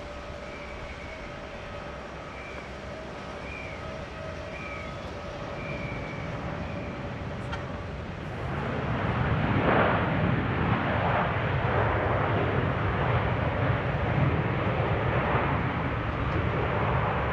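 Jet airliner landing or passing close by: a distant steady whine at first, then the jet's broad rushing engine noise swells about halfway through and stays loud.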